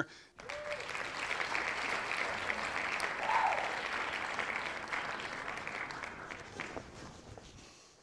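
Handheld gas torch burning with a steady hiss, heating adhesive-lined heat-shrink tubing over a battery-cable lug. The hiss starts just after the beginning and gradually fades toward the end.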